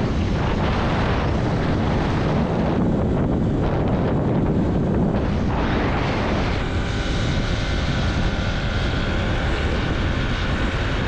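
Wind buffeting the microphone over a steady low vehicle drone, as from a motorbike under way. About six and a half seconds in, a set of steady higher tones joins it.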